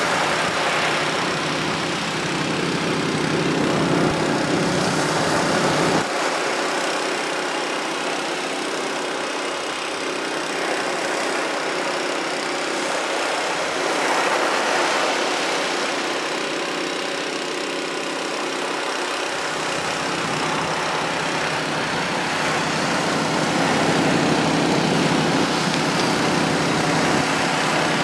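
Water rushing through a gold-prospecting beach box sluice and over its ribbed rubber matting during a cleanout, with a low engine hum underneath that is fainter through the middle.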